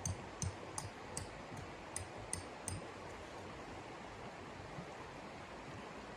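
A quick, regular series of crisp crunches, about three a second, over a steady hiss; the crunches stop about three seconds in and the hiss goes on alone.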